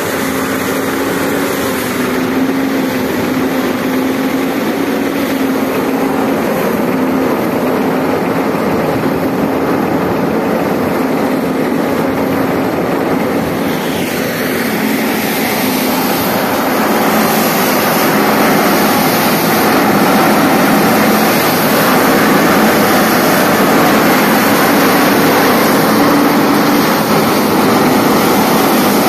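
Tractor-driven straw-chopping machine running steadily, with a steady engine hum under the rush of chopped straw being blown out through its pipe. It grows louder about halfway through.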